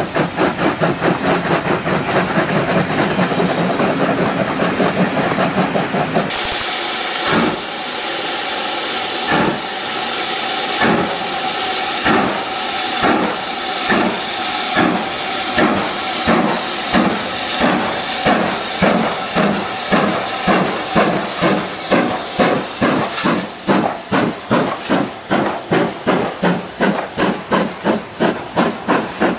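Steam locomotive exhaust chuffing: quick, steady beats at first; then, about six seconds in, a BR Standard Class 5 4-6-0 working away with beats about a second and a half apart that quicken steadily to about two a second as it gathers speed.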